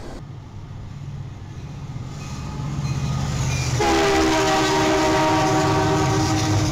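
Locomotive horn sounding a chord about four seconds in and held, over a low rumble from the train that grows louder as it approaches.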